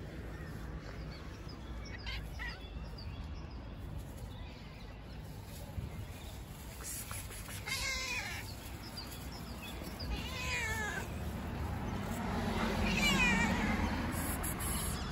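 Fluffy cat meowing again and again, about four separate meows a few seconds apart. The loudest, wavering meow comes near the end.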